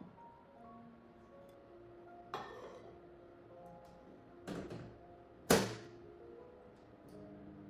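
Soft background music, with three knocks about two and a half, four and a half and five and a half seconds in; the last knock is the loudest, with a short ring after it.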